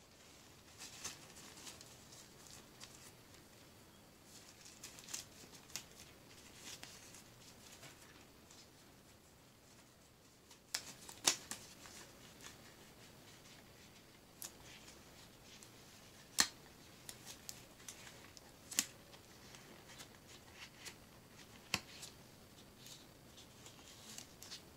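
Thin disposable rubber gloves being pulled onto the hands: soft rubbery rustling and stretching, broken by several sharp snaps of the stretched glove.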